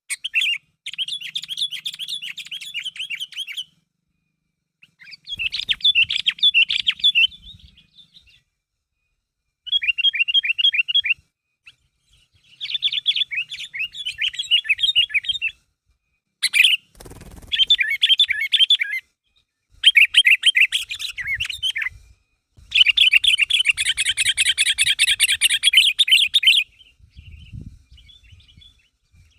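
Sooty-headed bulbul (kutilang) calling in bouts of rapid, repeated high notes, each bout a second or three long and separated by short silences, the longest bout coming near the end. These are lively calls to rival birds, the kind that prompt other bulbuls to answer.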